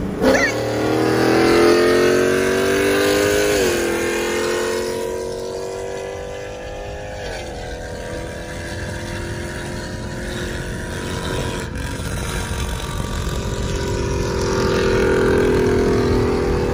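Dodge Challenger HEMI V8s accelerating hard at full throttle, heard from inside one of the cars. The engine pitch climbs steadily and drops abruptly at upshifts about four and seven seconds in, then keeps climbing more slowly in the higher gear.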